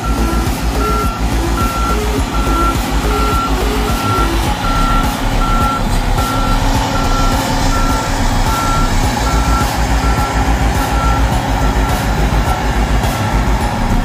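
Volvo motor grader's diesel engine running under load, with its reversing alarm beeping evenly a little over once a second until the beeps stop about three-quarters of the way through.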